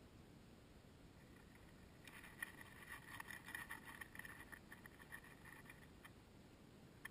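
Faint crackling rustle of dry hay close to the microphone, starting about two seconds in and lasting some four seconds, with a single small tick near the end.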